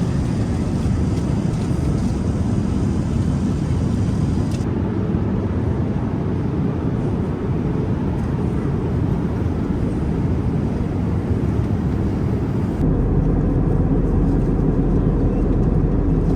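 Airliner cabin noise: a steady low rumble of the jet engines and rushing air. The sound changes abruptly about four and a half seconds in and again near thirteen seconds, growing louder and deeper after the second change.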